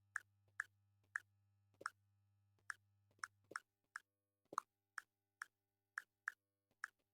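Key-press sounds of a Redmi Note 9's on-screen keyboard: short, soft plopping clicks, one per letter typed, coming unevenly at about two to three a second. Each click is the keypress sound that has just been switched on in the keyboard's sound settings.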